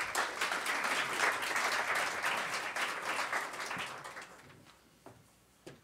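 Audience applauding, a dense patter of many hands that dies away about four seconds in.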